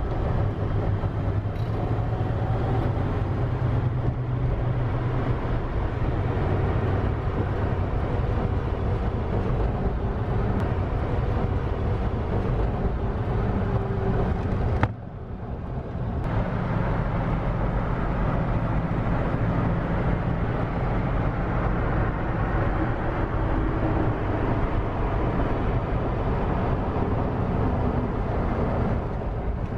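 1939 Cadillac Series 61's V8 engine running, with a steady low engine and road noise. About halfway through the sound cuts out for about a second, then picks up again unchanged.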